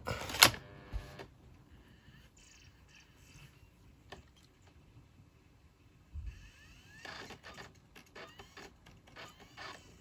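iBook clamshell's CD-ROM drive spinning up and seeking a freshly inserted disc: scattered clicks and a thump, then whirring with short rising whines in the second half.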